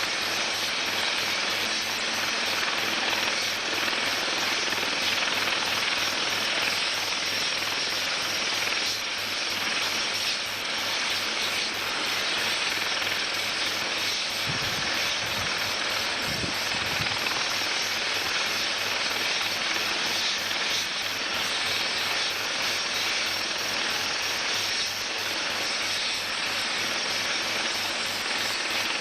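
Helicopter running on the deck with its main rotor turning: a steady turbine and rotor noise.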